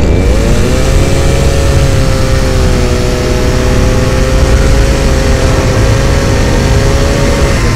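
Patriot two-stroke petrol chainsaw revved up to full throttle, its pitch rising sharply in the first half-second and then holding steady as it cuts through a block of raw beef. It cuts off suddenly near the end.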